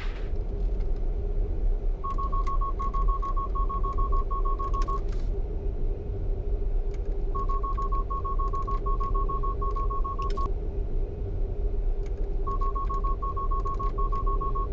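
Tesla Model X warning chime beeping in three runs of quick, even beeps over steady road rumble inside the cabin. It is the alert that corrective steering is being applied to keep the car in its lane.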